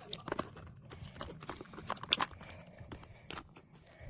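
Potato chips crunching and crackling: a run of irregular sharp clicks and cracks.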